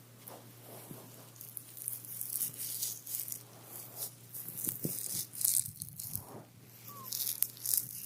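Close-miked rustling and crinkling in irregular crackly bursts, like handling something dry or papery.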